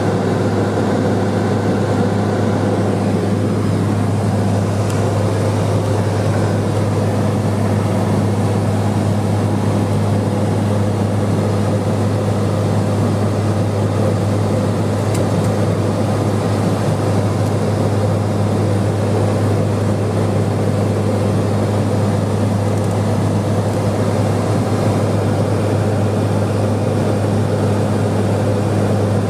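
Cabin drone of a Cessna 210 Silver Eagle's single Rolls-Royce 250 turboprop engine in flight: a steady low hum of constant pitch with an even hiss above it.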